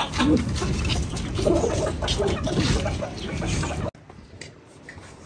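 Chickens clucking, with scattered clicks and rustles. The sound cuts off abruptly about four seconds in, leaving only faint room noise.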